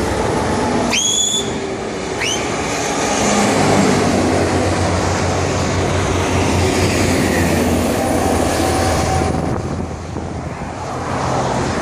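Heavy trucks and cars passing at speed on a motorway: steady tyre and engine noise with a low drone. About a second in, and again a second later, there are two short high squeals rising in pitch.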